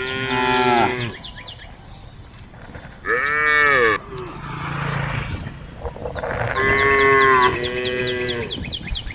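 Cows mooing: three long calls, each falling in pitch at the end, the last one the longest.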